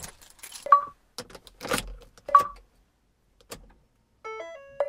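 Clicks and knocks of things being handled inside a car, with three short electronic beeps and a quick run of electronic tones stepping up and down near the end.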